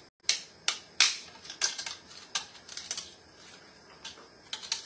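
Dry lasagna noodles snapping as they are broken by hand into small pieces: a series of sharp, irregular cracks.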